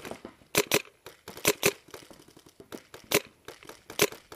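Paintball markers firing in scattered volleys: sharp pops, mostly in quick pairs, about half a dozen in all.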